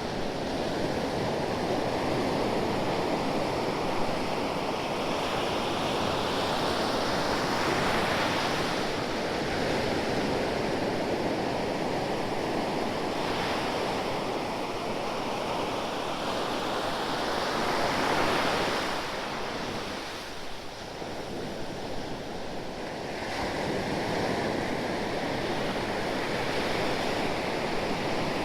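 Ocean waves breaking and washing on the shore, rising and falling in slow surges every few seconds, with a quieter lull about two-thirds through.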